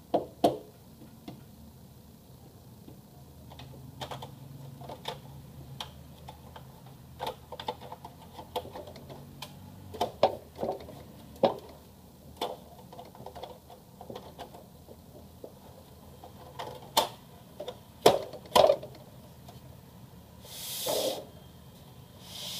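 Irregular sharp clicks and knocks of hard plastic as an HP LaserJet CP1025 colour laser printer's toner cartridge and casing are handled, with a brief hissing scrape near the end.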